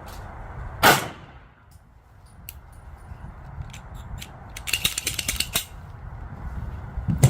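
Two shots from a PSA Dagger 9mm pistol, about a second in and again near the end, each a sharp crack with a short echo. Between them come scattered light clicks and a brief rattle of small metallic clicks.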